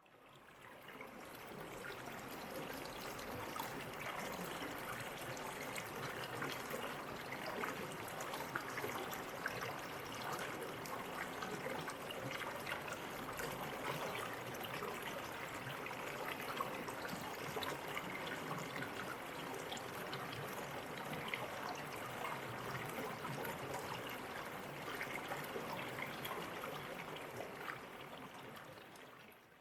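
Waterfall stream water trickling and splashing over rocks in a steady, even babble. It fades in at the start and fades out at the end.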